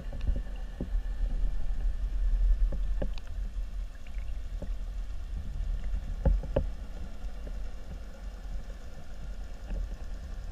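Muffled low rumble of water against an underwater camera's housing, with scattered light clicks and knocks and a sharper knock about six seconds in.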